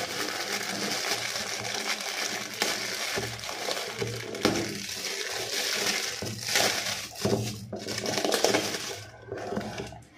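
Gift-wrap paper crinkling and rustling as a present is unwrapped by hand, with irregular crackles throughout.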